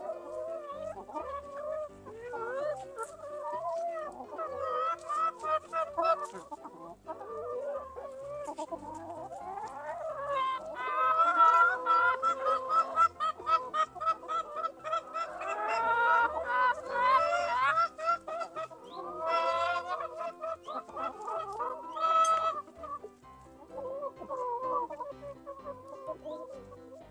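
A flock of chickens clucking and squawking while feeding, many birds calling over one another, with louder, busier calls around the middle.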